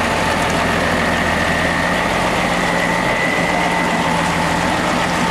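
M35A2 deuce-and-a-half army truck's multifuel diesel engine running steadily at low revs, with a steady high whine over the engine note.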